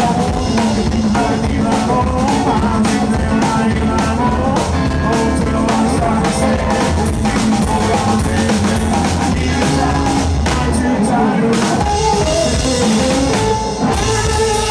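Rockabilly trio playing live: twangy electric guitar, a drum kit keeping a driving beat, and upright double bass.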